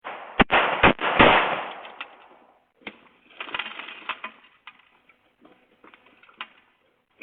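Handgun shots fired at a front door, picked up by a doorbell camera's microphone: three sharp bangs within about a second, the last trailing into a noisy crash. Scattered cracks and clicks follow as the door's glass breaks.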